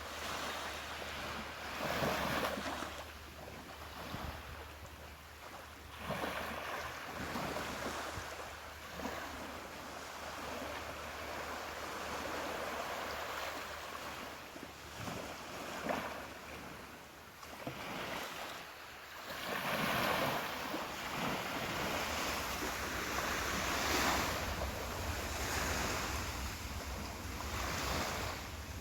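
Ocean waves breaking and washing up on a beach, swelling and easing every few seconds.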